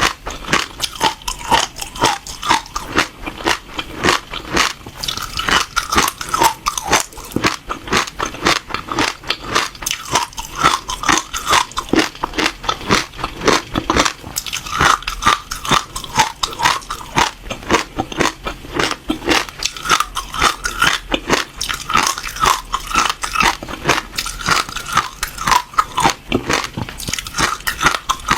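Passion fruit seeds being chewed and crushed between the teeth: a steady run of many sharp, crisp cracks a second, loud and close.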